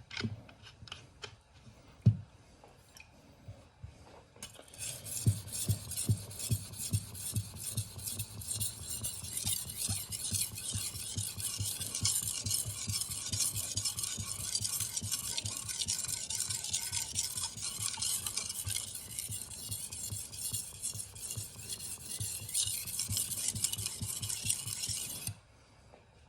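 A few knocks and clicks, then a Damascus steel knife blade stroked back and forth across a 3000-grit whetstone: a steady rhythmic scraping hiss that starts about four seconds in and stops abruptly near the end.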